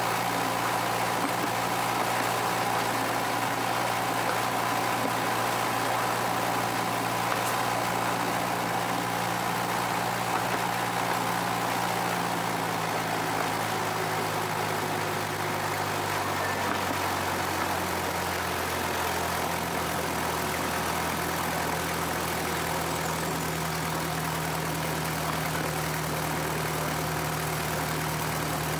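Miniature railway locomotive's engine running steadily, its note shifting a little about halfway through. A fainter high whine fades out before the middle.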